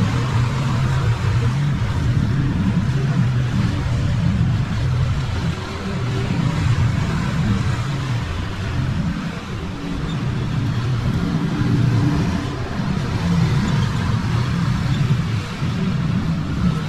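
Small petrol lawn mower engine running steadily, its pitch wavering slightly as it works through grass.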